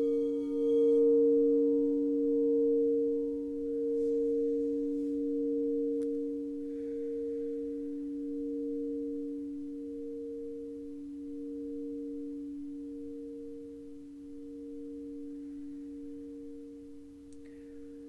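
A meditation singing bowl ringing out, two steady low tones held with a slow wavering pulse, fading gradually.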